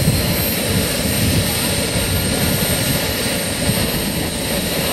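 Scale model Bell helicopter running on the ground with its rotors turning slowly during start-up. A steady high whine from its drive sits over a continuous low rumble.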